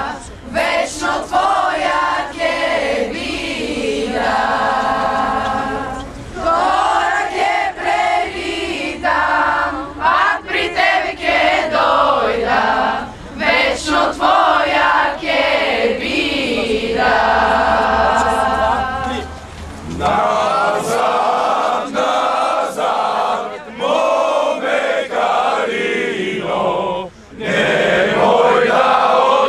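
A large group of men and women singing a Bulgarian folk song together in unison, unaccompanied, with several long held notes.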